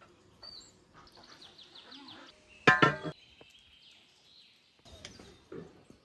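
Small birds chirping outdoors, with a quick high trill about a second in. A loud, short sound cuts in about three seconds in and stops after less than half a second.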